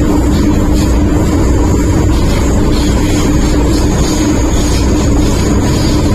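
MTR Tsuen Wan Line M-Train electric multiple unit running, heard from inside the carriage: a loud, steady rumble with a constant hum over it.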